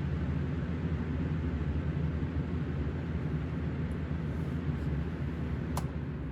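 Lakewood Kool Operator portable fan, with a 1993 McMillan motor and 1996 blade, running steadily: a rush of moving air over a low motor hum. A single sharp click comes near the end.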